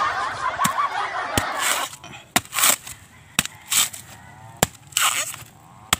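Bolo knife chopping into a coconut's fibrous husk: about six sharp single chops about a second apart, with fibre tearing and rustling between them. For the first two seconds a loud chorus of honking fowl calls over the chopping, with a few fainter calls later.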